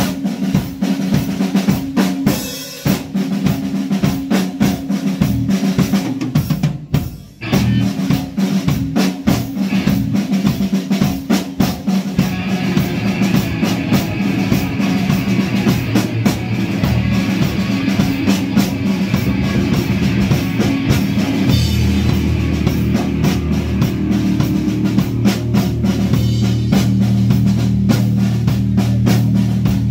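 Live punk rock band playing a loud instrumental passage: driving drum kit with bass drum and snare over bass and distorted guitars. There is a brief break about seven seconds in, then the full band comes back in.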